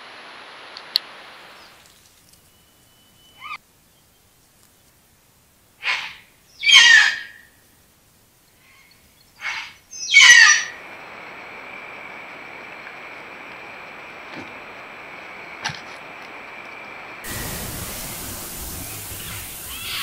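A wild bird gives four loud, harsh calls in two pairs, between about six and ten seconds in. Around them is a steady camera hiss, with a faint high whine after the calls.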